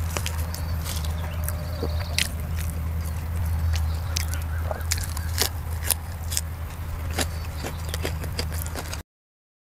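A person chewing a mouthful of food, with sharp mouth clicks and crunches scattered throughout, over a steady low hum. The sound cuts off suddenly about nine seconds in.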